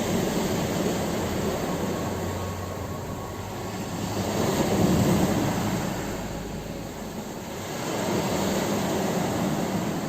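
Ocean waves breaking on a shore: a steady wash of surf that swells, peaks about halfway through, eases, then surges again near the end.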